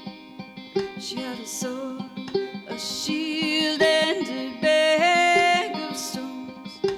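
Acoustic folk music: a plucked string instrument picking notes that ring on, with a long wavering note held over it in the middle that steps up in pitch near its end.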